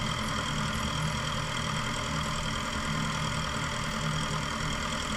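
A Cessna Skyhawk's propeller engine running steadily at low power as the plane taxis slowly onto the runway.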